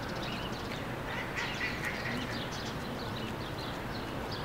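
Birds chirping and calling in quick short notes, busiest about a second to two and a half seconds in, over a steady background noise.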